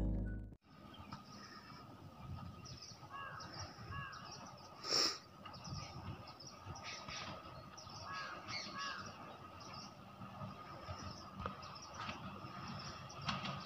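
Music cuts off in the first second, giving way to quiet outdoor ambience with birds calling now and then; one louder call comes about five seconds in.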